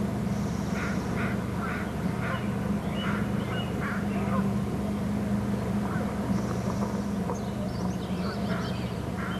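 A bird calling in a quick series of short chirps, about three a second, for the first four seconds or so, then a few more near the end, over a steady low hum.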